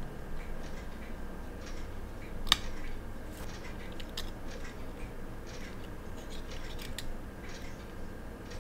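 Scattered light metallic clicks of steel tweezers and a watchmaker's screwdriver against a small quartz watch movement while its plate screws are taken out. The sharpest click comes about two and a half seconds in.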